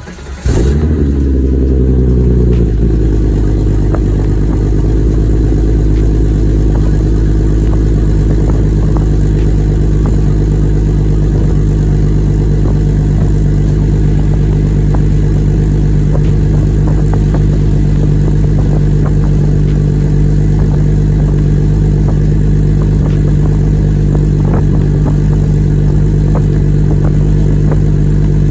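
3.6-litre VR6 engine, breathing through custom headers and a Magnaflow-muffled exhaust, starting about half a second in. The revs flare and drop over a couple of seconds, then it settles into a steady idle.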